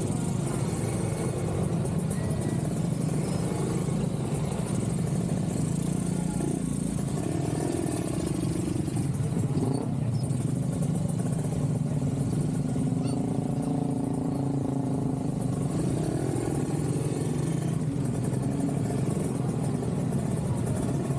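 Motorcycle and car traffic crawling in a city jam: engines running at low revs make a steady low drone. Now and then an engine's pitch rises and falls as it pulls away.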